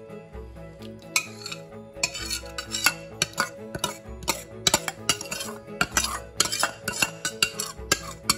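A metal spoon stirring and scraping in a bowl, clinking against its sides in quick, irregular strokes that start about a second in, over background music. The spoon is mixing sour cream with hot stew to keep the cream from curdling.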